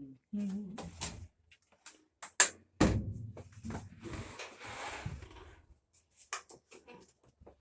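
Knocks and clatter of washer parts being handled during disassembly, with a sharp knock about two and a half seconds in, followed by about two seconds of rubbing noise and a few lighter clicks.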